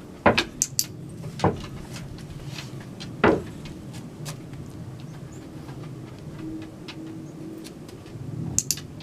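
A loose board on a small obstacle (a dog-agility bang board) tipping and banging as a dog steps on it: three sharp bangs in the first few seconds. Between and after them come short, high clicks of a training clicker: a pair soon after the first bang and another pair near the end.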